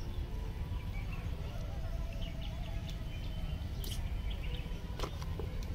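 Small birds chirping and calling faintly over a steady low rumble, with a couple of sharp clicks about four and five seconds in.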